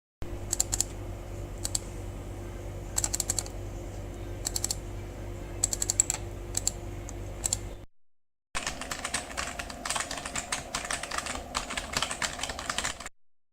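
Rapid light clicking in two takes. The first, about eight seconds long, has scattered clusters of clicks over a steady low hum. After a short break comes a denser, busier run of clicks lasting about four and a half seconds. Each take cuts off suddenly.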